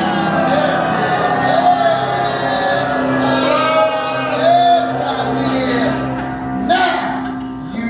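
Voices singing a song with instrumental accompaniment, sung notes wavering over a steady low note held through the second half.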